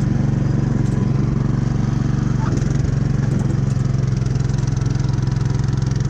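Gas snowblower engine running steadily while it clears and throws snow.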